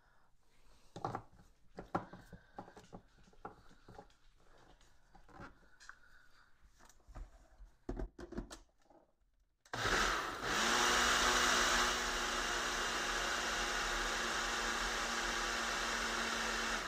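Personal blender: a few seconds of plastic clicks and knocks as the cup is capped and seated on the motor base, then about ten seconds in the motor starts, its pitch rising briefly as it spins up, and runs steadily, blending coconut cream with condensed milk, until it stops at the end.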